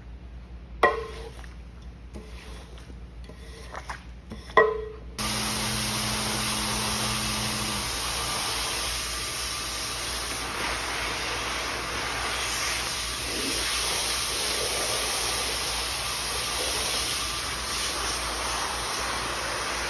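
Two sharp knocks, about a second in and again about four and a half seconds in. From about five seconds in, a steady hiss of water spraying from a hose nozzle onto a soaked area rug.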